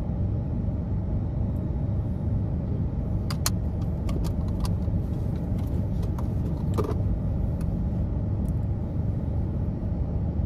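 Steady low rumble of a car, heard from inside the cabin, with a few light clicks and taps about three and seven seconds in.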